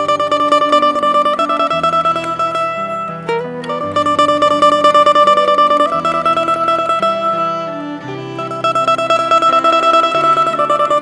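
Cavaquinho playing a melody, holding its notes with rapidly repeated plucks, over lower bass notes that change beneath it.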